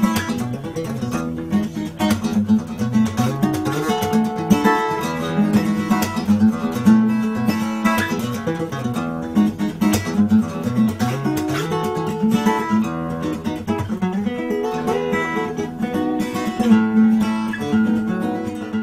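Acoustic guitar music, picked notes and strums in a steady flow, cutting off at the end.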